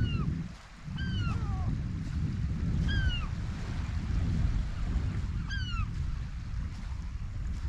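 Gulls calling: about five short cries that slide downward in pitch, two close together about a second in, one near three seconds and one near five and a half seconds, over a steady low rumble.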